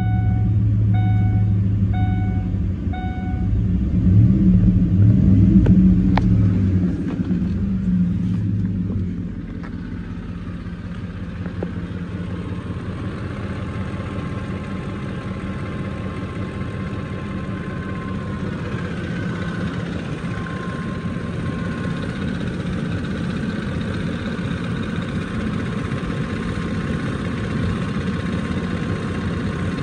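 2006 Ford F-150's 5.4-litre V8 idling just after starting, while a dashboard chime beeps several times in the first few seconds. The engine grows briefly louder about four to six seconds in, then settles to a steady, quieter idle.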